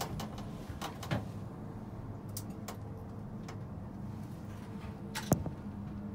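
Steady low hum heard inside a moving gondola lift cabin, with a few light clicks and creaks and one sharp knock about five seconds in.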